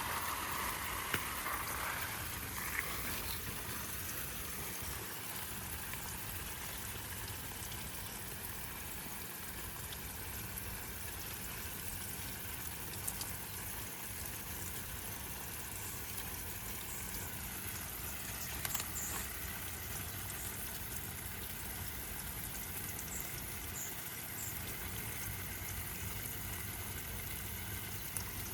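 Steady, even rushing noise like running or trickling water. A few faint, short, high chirps come in the second half.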